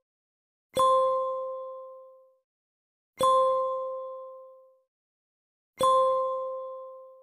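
A chime struck three times, about two and a half seconds apart. Each strike rings one clear note that starts sharply and fades away within about two seconds.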